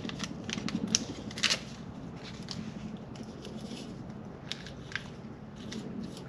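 Small hand-handling noises of brake lubricant being worked onto brake pad parts: scattered light clicks, crinkles and soft squishes, with a few sharper clicks, the loudest about one and a half seconds in.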